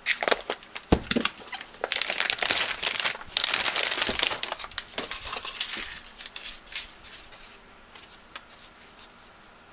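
A clear plastic vacuum bag crinkling and rustling as a cardboard filament spool is pulled out of it, with a few sharp knocks among the crackle. The rustling dies down after about six seconds.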